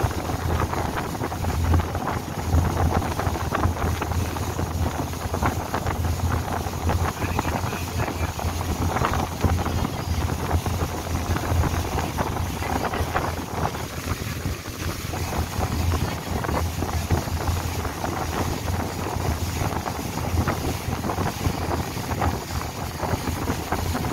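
Long-tail boat's engine droning steadily under way, with wind buffeting the microphone.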